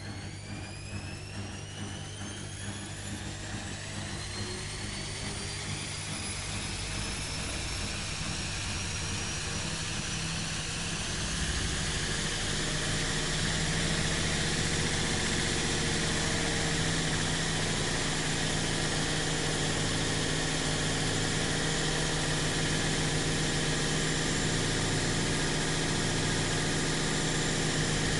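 Washing machine motor and drum speeding up, with a whine that rises in pitch over the first several seconds. It grows louder, then holds a steady high-speed run from about halfway through, as in a spin cycle.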